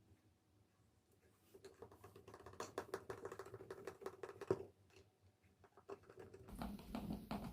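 Quick, light clicking and scratching of small parts being handled, from about one and a half seconds in to about five seconds, with one sharper click near the end of that run.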